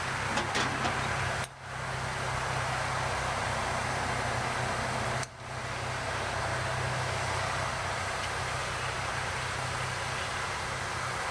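Electric blowers on a wood-gas truck's gasifier running steadily, a low hum under a loud rush of air, drawing air through the gasifier to light the charcoal bed during warm-up. The sound drops out briefly twice and comes straight back.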